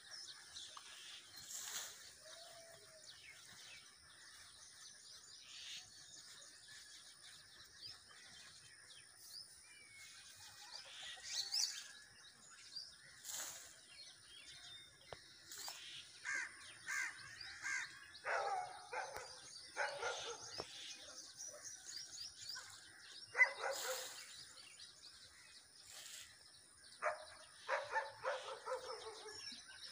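Outdoor birdsong: small birds chirping throughout, with bursts of louder, harsh calls in clusters in the second half.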